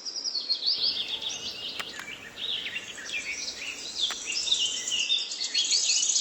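Birds chirping and singing together: many quick, high, rising and falling calls overlapping without pause, with a few faint clicks.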